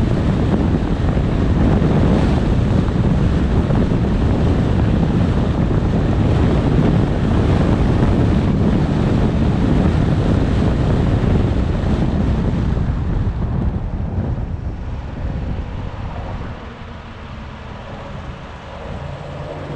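Wind buffeting the microphone, loud and steady, easing off from about thirteen seconds in.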